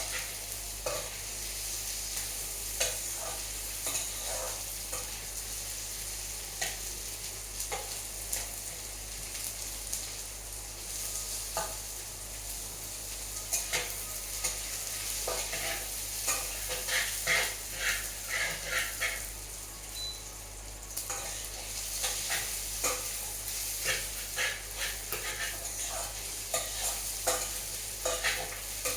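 Food sizzling in hot oil in a pan, with a stirring utensil repeatedly scraping and knocking against the pan. The scraping comes in quicker runs about halfway through and again near the end.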